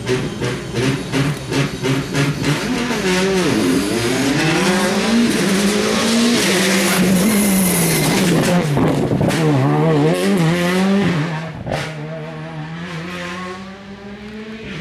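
Rally car engine at a stage start, held on high revs with rapid regular popping, then launching and accelerating hard, its pitch climbing and dropping with each gear change as it pulls away. Near the end a single sharp crack, then a steady idling engine note from the next car.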